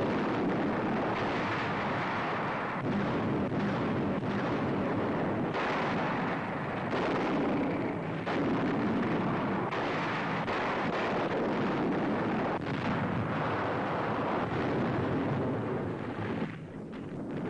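Continuous barrage of artillery and rocket fire with explosions, one blast running into the next with no pause, easing briefly near the end.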